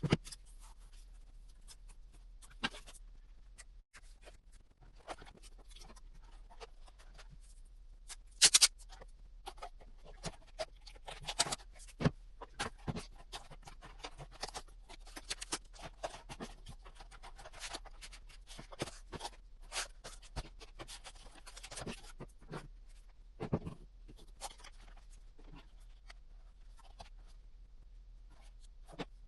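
Hand work on cardboard: scattered scratches, scrapes and taps at irregular intervals, with a few louder clicks, over a steady low hum.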